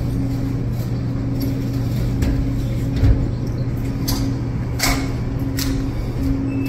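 Steady low electrical or machine hum filling the room, with a few faint clicks and a short thump about three seconds in.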